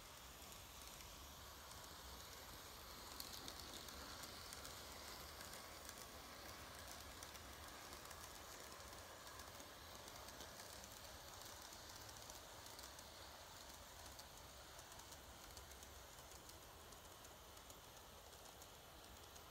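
Faint running of an N-gauge model train, a C11 steam locomotive with sleeper coaches, on sectional track: a steady low hiss with fine, rapid ticking from the small wheels on the rails.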